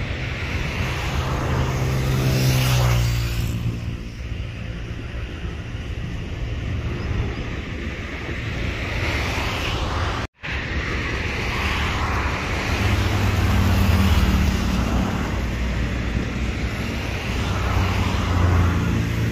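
Highway traffic passing close by: a steady rush of road noise with a low engine hum, swelling as individual vehicles go past, with one brief cutout about halfway through.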